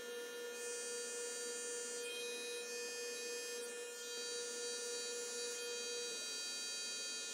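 Small airbrush compressor running with a steady hum; its main tone shifts slightly about six seconds in.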